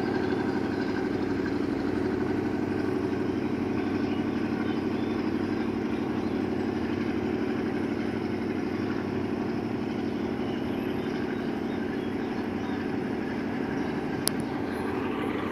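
Alsthom 4208 diesel locomotive idling steadily, a constant engine hum, with one brief click near the end.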